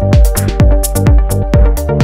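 Electronic dance music: a steady kick drum about twice a second with hi-hats over sustained synth chords.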